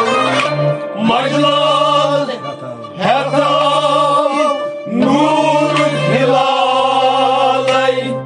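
A man singing a Kashmiri devotional kalam in about four long, held phrases with wavering vibrato.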